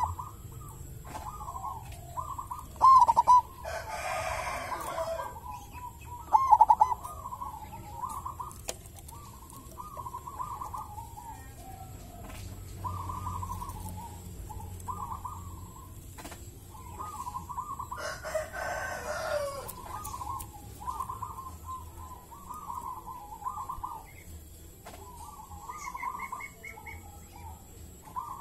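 Zebra dove cooing: short rolling phrases of cooing notes repeated one after another, two of them louder in the first few seconds. A rooster crows twice, about four seconds in and again a little past the middle.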